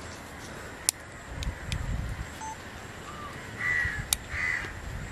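Crows cawing, mostly in the second half, with two sharp snips of small pruning shears, about a second in and about four seconds in, cutting damaged berries out of a bunch of grapes.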